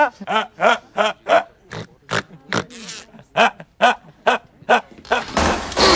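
A man laughing hard in a string of short bursts, about two or three a second. Near the end a loud rushing noise takes over.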